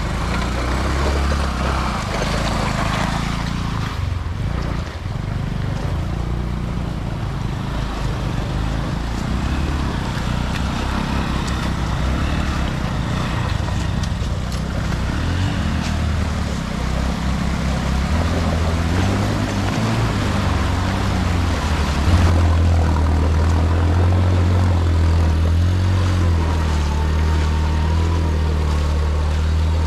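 Small motorcycle engine running as the bike rides through a shallow, rocky stream. Its low note shifts a few times and gets louder about 22 seconds in.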